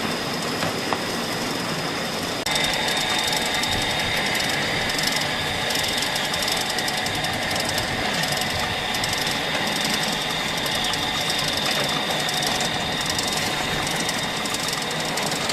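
Machinery running steadily, a continuous mechanical clatter with a steady high whine, getting louder about two and a half seconds in.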